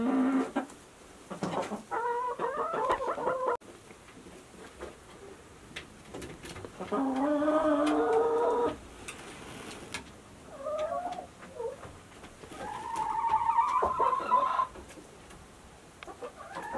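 Chickens calling: a series of about five long, drawn-out pitched calls, each lasting one to two seconds, with quiet gaps between them.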